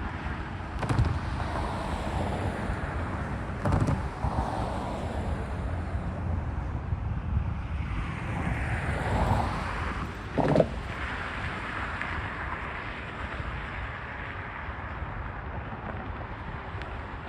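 Intermodal double-stack freight train rolling past: a steady rumble and rattle of wheels on rail. Sharp clanks come about one, four and ten and a half seconds in, the last the loudest. Wind on the microphone.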